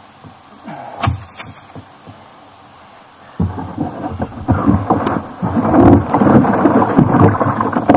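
A few sharp knocks about a second in, then a loud, dense rumbling and scraping from about three and a half seconds: handling noise of a plastic kayak, camera mounted on board, being grabbed by its bow handle and hauled over leaf-covered ground.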